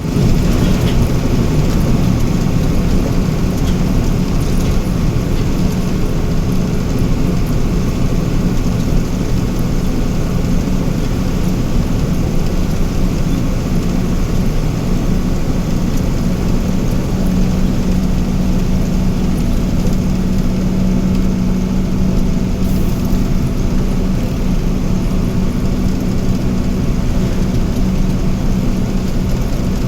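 Heavy diesel machinery engine running steadily, a constant low hum with a droning tone that does not rise or fall.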